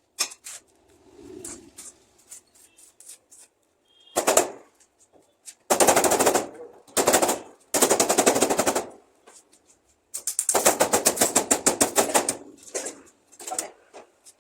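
Electric arc welding on sheet steel in short bursts, one tack or short bead after another: a fast, rattling crackle that starts and stops about seven times, the longest burst lasting about two seconds.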